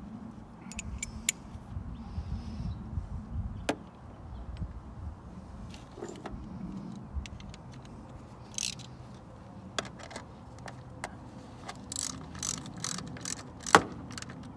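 Metal hand tools handled with scattered clicks, then a socket ratchet clicking about three times a second near the end as the ignition coil's hold-down bolt is run in, over a steady low rumble.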